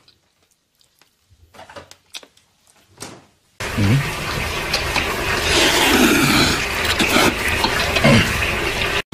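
Faint, sparse eating noises at first. About three and a half seconds in it turns to loud, continuous wet slurping of noodles or soup from a bowl, which cuts off abruptly near the end.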